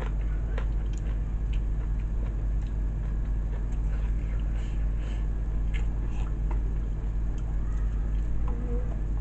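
Chewing and eating sounds with scattered faint clicks and taps as hands pick at rice and fried chicken, over a steady low hum.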